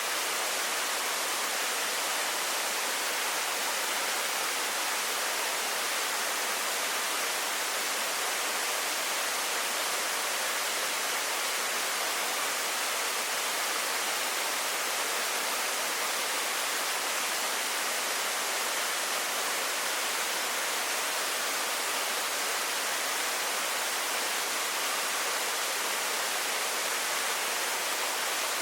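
Steady rush of falling water from Yakushima's Primitive Waterfall (Gensei-no-taki): an even, unbroken hiss, mostly high-pitched with little low rumble.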